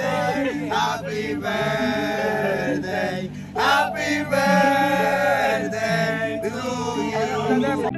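Several men singing and chanting together, loud and unison-like, over a music track with a repeating bass line.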